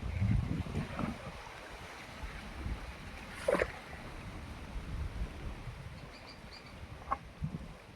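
Outdoor ambience on a small fishing boat on the water: a low rumble of wind and water with scattered light knocks. There is a short sharp sound about three and a half seconds in and another brief one near the end.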